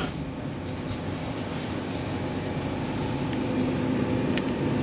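Stockholm metro C14 train starting off from a station, heard from inside the car: a low rumble that slowly grows louder, with a steady hum coming in about three and a half seconds in.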